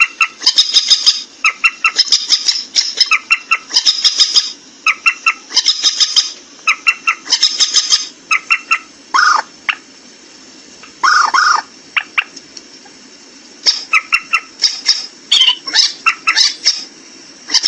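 Waterhen calling in rapid bouts of short, harsh, repeated notes. Two longer drawn-out notes come about nine and eleven seconds in, then a short pause, then the quick series resume.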